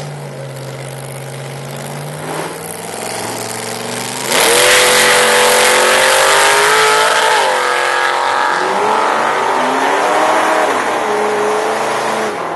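Supercharged small-block Chevy V8 with an 8-71 blower in a drag truck, running at the starting line, then about four seconds in launching at full throttle, much louder, its revs climbing and dipping back several times as it shifts and pulls away.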